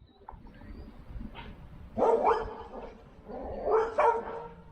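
An animal giving two loud, bark-like calls about a second and a half apart, over a faint low rumble.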